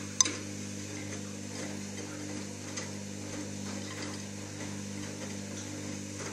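Beko SMW 3508 TGK washing machine running a delicates wash at 30°: a steady motor hum with faint water sloshing, a sharp click about a quarter second in and a few light ticks.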